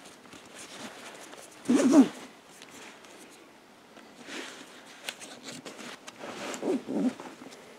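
Nylon backpack straps being pulled through plastic strap keepers and a buckle, with fabric rustling. There is a short loud rasp about two seconds in and another run of rasps near the end.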